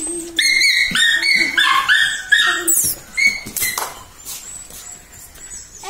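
A dog giving a quick run of high-pitched yips, about three a second for two and a half seconds, then a couple more.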